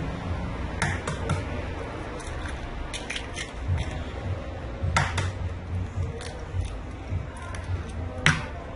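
Eggs being cracked one at a time and dropped into a bowl of batter ingredients: several sharp taps and cracks spread through, over a low steady hum.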